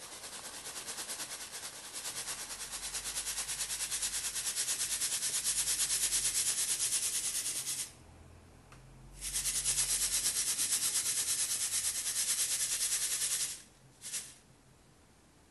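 Baking soda powder being sifted through a fine stainless-steel mesh sieve, falling onto a heap with a steady, rapidly pulsing hiss. It stops about eight seconds in, starts again a second later, and stops near the end with one short last burst.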